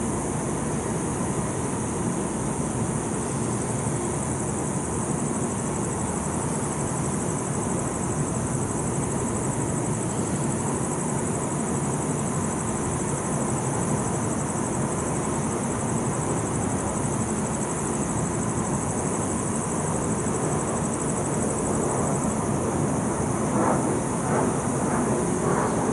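Steady outdoor city background noise: distant traffic hum, with a faint high steady whine running through most of it that stops a few seconds before the end.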